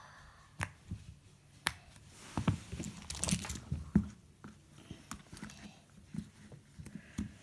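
Fidget toys being handled: a few sharp clicks, then a busier stretch of crinkling and rustling about two to four seconds in, with small scattered knocks after.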